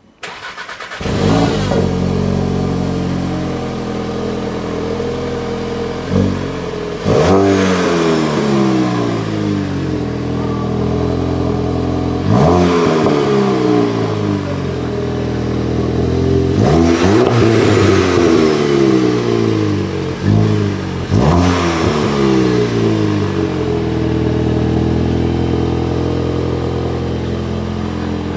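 2018 VW Golf GTI Performance's 2.0-litre turbocharged four-cylinder petrol engine starting up, then idling between about six quick rev blips that climb sharply and fall back more slowly.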